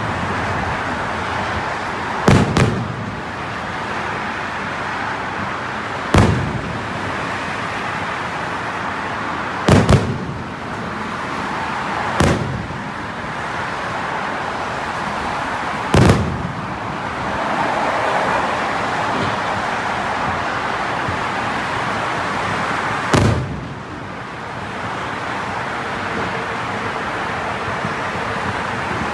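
Aerial fireworks shells bursting in a display: about eight sharp bangs, some in quick pairs, a few seconds apart, over a steady background din.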